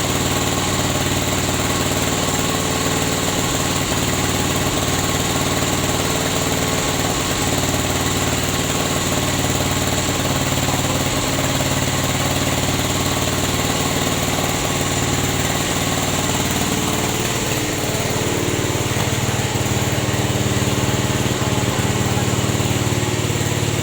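Engine-driven rubber latex press running steadily, its motor holding an even note; the note shifts slightly about eighteen seconds in.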